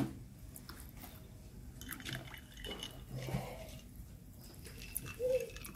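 Fresh milk poured in a thin stream into a glass of iced coffee, trickling faintly over the ice cubes. There is a sharp click right at the start.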